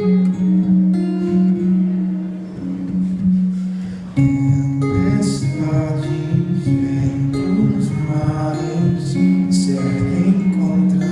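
Music of plucked strings over held low notes, with a change of chord and a rise in loudness about four seconds in.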